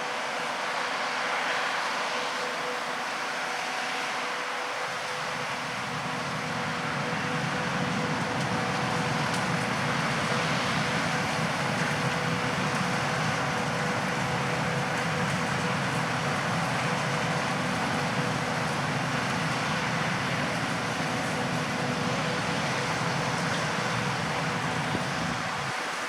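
Peanut harvesting machinery running steadily, a constant hum over a noisy mechanical wash, with a deeper engine rumble that comes in about five seconds in and cuts off near the end.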